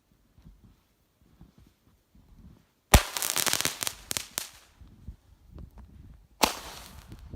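Firework gatling-gun cake firing: about three seconds in, a sudden run of rapid cracking bangs lasting about a second and a half, then another sharp bang a little after six seconds with a short crackle after it. Faint low thumps come before the first shots.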